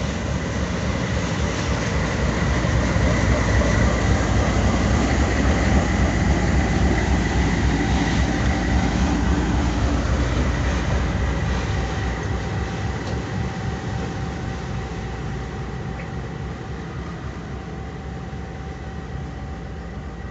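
Diesel-electric helper locomotive at the tail of a loaded coal train passing close by and pulling away. A heavy rumble of engine and wheels on rail carries a steady high whine; it is loudest a few seconds in, then fades steadily as the train draws off.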